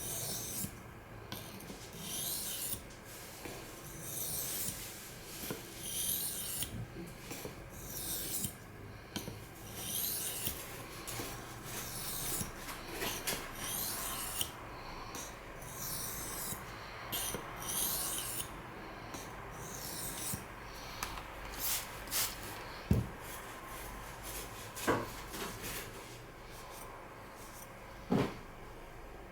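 A CPM S30V steel knife blade is stroked edge-first across a Japanese water stone in rasping strokes, roughly one a second. The strokes thin out about two-thirds of the way in, and a few sharp knocks follow near the end.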